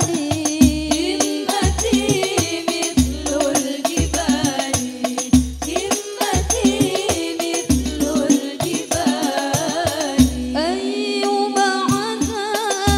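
Sholawat banjari: women's voices singing an Arabic devotional song together into microphones over a steady beat of frame drums (rebana) with deep low hits. About ten and a half seconds in the drums drop out while the voices hold one long note.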